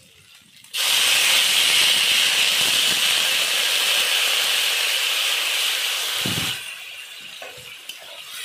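Water poured into a hot wok of oil-fried potatoes and spice paste, hissing and sizzling loudly from about a second in and dying down after about six seconds, with a dull knock as it fades.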